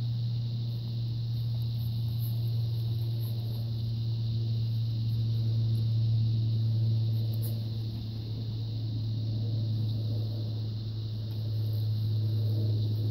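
A steady low mechanical hum, running at an even pitch throughout, from an unseen machine.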